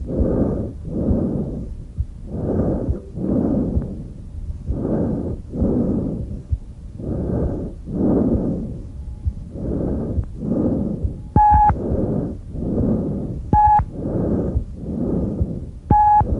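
Tracheal breath sounds heard on auscultation over the neck: loud, harsh, hollow breathing noise in regular inhale-exhale pairs, about one breath every two seconds, with the expiratory phase slightly longer than the inspiratory. Three short beeps cut in during the second half.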